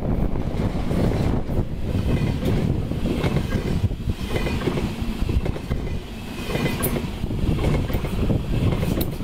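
ICE high-speed train's carriages passing close by, a steady rumble of wheels on rail with scattered sharp clacks as the wheels run over rail joints and points.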